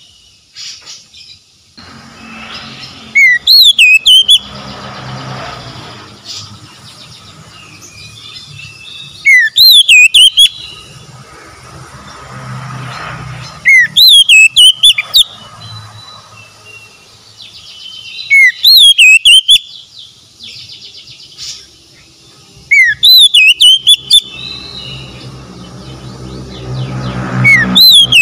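Oriental magpie-robin singing one loud whistled phrase over and over, about every four to five seconds. Each phrase is a quick sweep up and down with sharp high notes.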